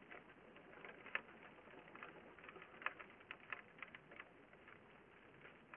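Faint, irregular patter of raindrops striking the camera and its housing, with scattered sharper ticks; the loudest comes a little over a second in.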